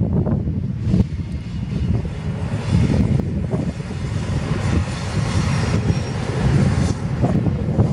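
Diesel locomotives of a BNSF freight train running as they pass, a heavy, steady low engine rumble with a broad hiss of noise layered on top from about a second in.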